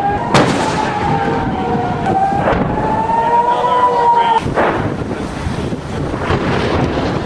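A warning siren wailing in a slow rise and fall, stopping a little over four seconds in, with wind buffeting the microphone. Three sharp bangs cut through it, the last just after the siren stops.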